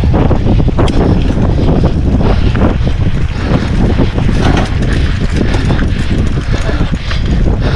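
Wind buffeting the helmet or chest camera's microphone as a mountain bike descends a rough dirt trail at speed, with a rapid clatter of the bike's chain and frame rattling over bumps.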